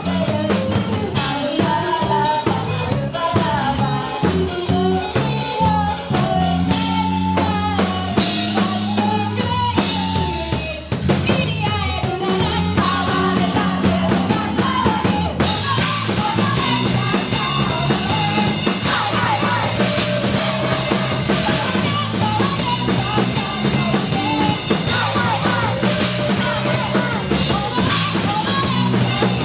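Band music driven by a full drum kit, with a bass line and a melodic lead gliding up and down. It thins out briefly about eleven seconds in, then comes back fuller.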